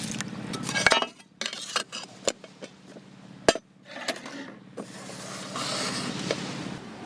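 Water pouring, cut off about a second in, followed by a series of clinks and knocks of cookware and utensils being handled, one of them much sharper than the rest; a steadier hiss of pouring or running water returns near the end.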